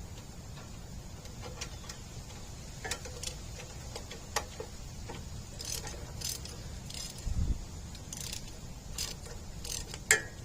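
Metal hand tools clicking and clinking against a brake caliper, in scattered light taps with a few short runs of clicks, and a dull thump about seven seconds in.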